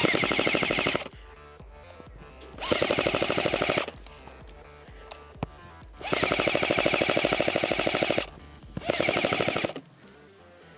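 Airsoft MP5 firing on full auto in four bursts of rapid, evenly spaced shots; the third burst is the longest, about two seconds.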